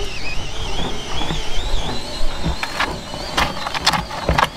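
Compressed air whistling past the bead of a big off-road tyre as it is reinflated on its rim with the bead not yet seated: a high, wavering whistle that slowly rises in pitch. In the last couple of seconds it is joined by several sharp clanks of a steel pry bar against the tyre and rim.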